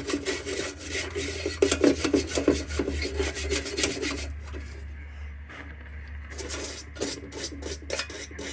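Hand scraping and scrubbing on the worn metal of an Embury No. 2 Camlox lantern, a quick test clean of its textured surface: rapid strokes for about four seconds, then thinning to scattered scrapes and light taps, over a steady low hum.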